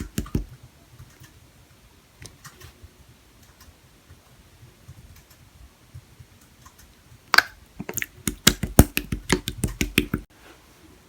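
Clear slime being pressed and squeezed by hand, making sticky clicks and pops. It is soft and sparse at first, then a fast run of louder pops comes about two-thirds of the way through and stops abruptly.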